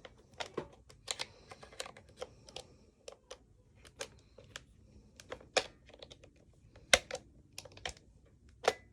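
Irregular clicks and taps of plastic and metal parts being handled as an airsoft CZ Scorpion Evo is worked apart, with the sharpest clicks about seven seconds in and near the end.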